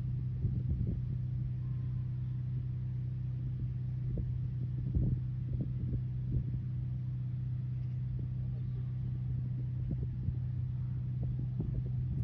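A steady low hum with a rumble beneath it.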